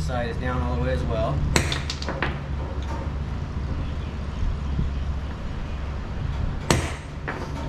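A few sharp metal clicks, then one loud hammer tap about two-thirds of the way in, as a U-joint and its retaining clip are worked into a driveshaft yoke. A steady low hum runs underneath.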